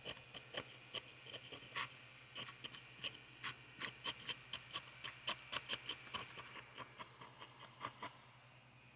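X-Acto craft knife picking and scraping at a crumbly casting in a wooden box: a quick, irregular run of small clicks and scrapes that stops near the end.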